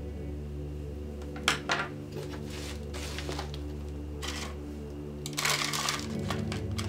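Tabletop handling sounds over steady ambient background music: a couple of sharp clicks about a second and a half in, then short rustles, and near the end a denser crumbling rustle as potting soil is handled into a small plastic pot.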